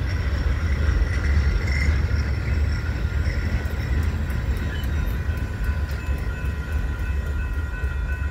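Freight train cars rolling past at close range: a steady low rumble of steel wheels on rail with a few thin, steady high tones from the wheels above it. It eases off somewhat in the second half as the last cars go by.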